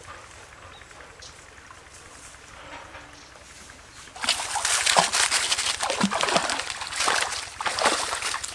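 A dog splashing through a shallow stream, starting about halfway in with a run of loud, repeated splashes. Before that there is only a faint trickle of water.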